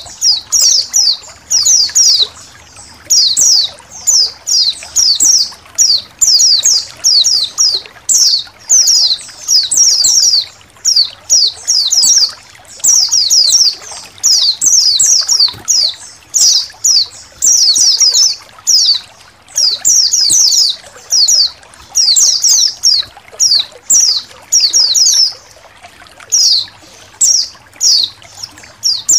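A flock of white-eyes (pleci) chirping and twittering, with rapid clusters of high, thin notes following one another without a break, over faint trickling water.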